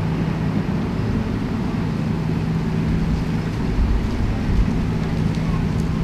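Steady low street-traffic hum with a constant low drone, swelling into deeper rumbles about four seconds in.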